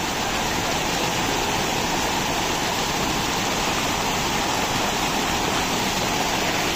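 Mountain stream rushing steadily over rocks and across a stone slab: a continuous loud rush of water.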